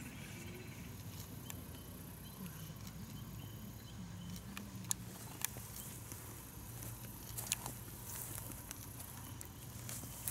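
Quiet outdoor ambience with a faint low murmur and a few scattered sharp clicks, the strongest about five and seven and a half seconds in.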